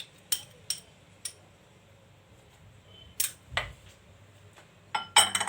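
Kitchen utensils and dishes being handled: a few separate light clinks and taps, a soft thud about three and a half seconds in, then a quick run of clicks near the end.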